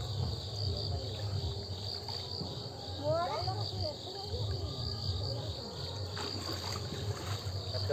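Crickets trilling in a steady, shrill, pulsing chorus. About three seconds in, a voice rises briefly over it.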